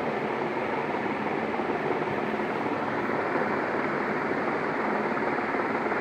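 CEC Deluxe 48-inch ceiling fan with curved blades running at speed: a steady, even whoosh of moving air.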